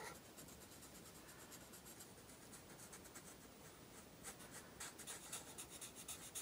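Black felt-tip markers scratching on paper in quick short strokes, filling in a small drawn shape. Faint, with the strokes coming thicker and a little louder from about four seconds in.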